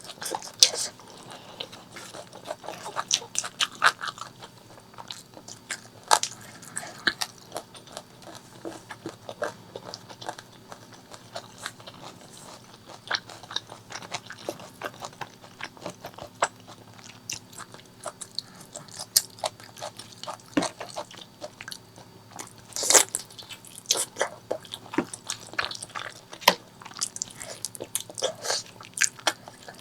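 Close-up eating sounds: a person chewing and biting spicy pork leg curry with rice, with wet smacking and irregular crunchy clicks that come in quick clusters, with some louder ones about 23 seconds in.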